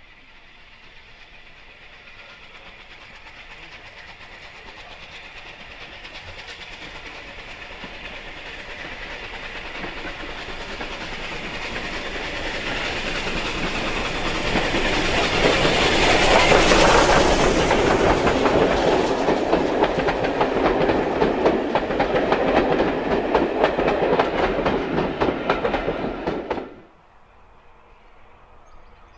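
Unrebuilt Bulleid Battle of Britain class steam locomotive No. 34072 257 Squadron approaching under steam, the sound growing steadily louder as it nears and passes close by. The sound cuts off abruptly near the end.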